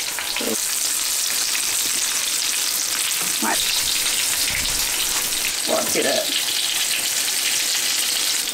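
Crumbed rabbit fillets shallow-frying in hot oil in a nonstick pan, a steady sizzle while the pieces are turned over with tongs.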